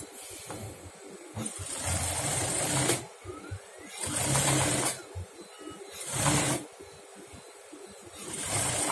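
Industrial sewing machine stitching stop-start in four short runs of about one to one and a half seconds each, with brief quiet pauses between them.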